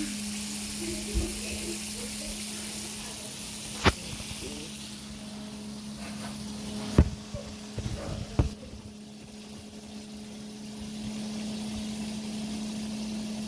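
Stovetop cooking sizzle that fades after about five seconds, over a steady low hum, broken by sharp knocks and clatters of kitchenware, the loudest about seven seconds in and a quick cluster just after.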